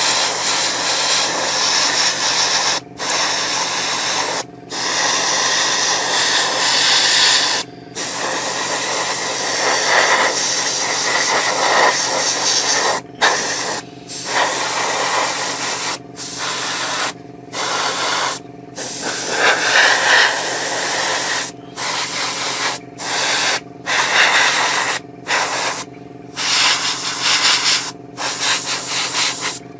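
Airbrush spraying paint: a steady hiss of air and paint that stops for a moment about a dozen times as the trigger is let off, the stops coming closer together in the second half. A light mist coat is going on as a guide.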